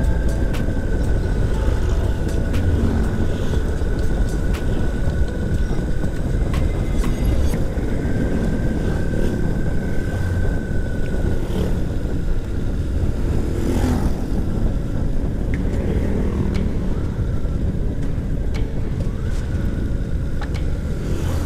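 Motorcycle running steadily at cruising speed, with heavy wind rush over the handlebar-mounted microphone.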